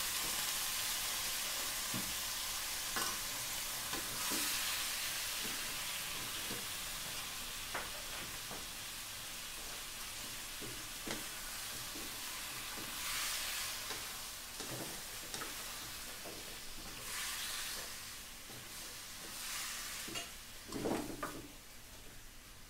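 Raw pork and chicken pieces sizzling in hot oil and fish sauce in a wok, stirred with a wooden spatula that knocks and scrapes against the pan now and then. The sizzle swells a few times and slowly dies down.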